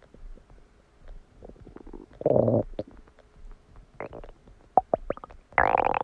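Human stomach gurgling as it digests a cheeseburger: a loud gurgle about two seconds in, a run of short pops and squeaks, then another long, loud gurgle near the end.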